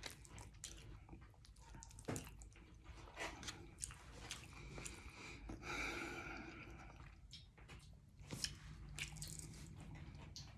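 Faint close-up chewing and quick wet mouth clicks of a person eating liver with rice and gravy.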